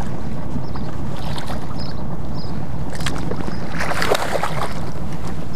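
Wind rumbling on the microphone, with a hooked fish splashing and thrashing at the water's surface beside the kayak, loudest about three to four and a half seconds in.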